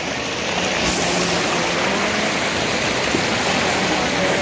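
Mountain stream running: a steady rush of water that gets a little louder about a second in.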